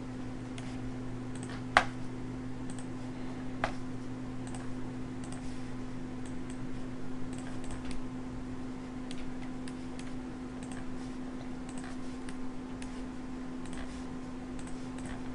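Scattered clicks of a computer mouse and keyboard being worked, two sharper ones about two and four seconds in, over a steady low hum.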